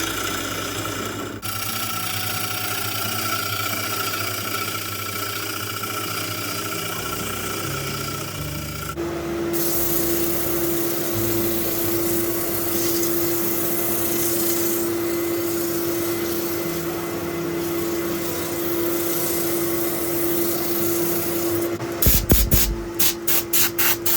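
Record Power Coronet Regent wood lathe running with a tool scraping against a spinning oak bowl blank, giving a steady hum and a rough hiss. The sound changes about nine seconds in to a lower steady hum, and a quick run of loud pulses comes near the end.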